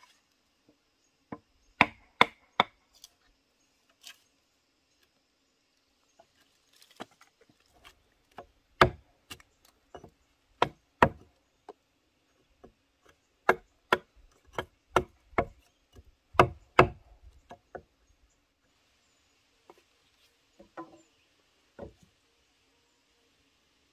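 Sharp blows of a hand tool striking bamboo, in uneven runs of two to five with pauses between, and a few lighter taps near the end.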